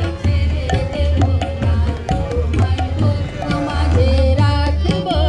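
Festival puja music: dhol drumming in a steady rhythm with a melody playing over it.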